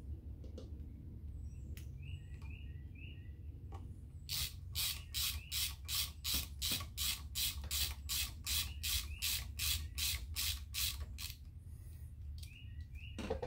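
Hand ratchet with a 5/32 Allen socket clicking in an even run of strokes, about three a second, as the lifter anti-rotation pins are run in. The strokes start about four seconds in and stop a couple of seconds before the end.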